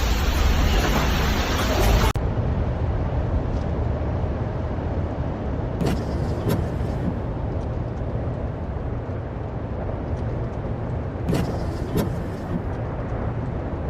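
Steady low rumbling of a motor vehicle. About two seconds in, a louder hiss cuts off abruptly, and a few brief knocks come later.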